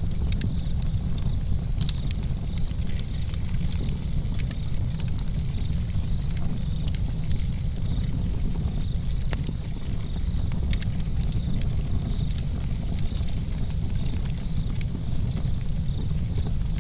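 Campfire crackling, with sharp pops and snaps scattered irregularly throughout, over the steady low rush of a flowing river.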